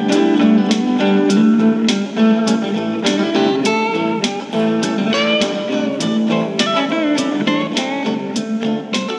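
Background music: a plucked-string guitar tune with evenly spaced notes.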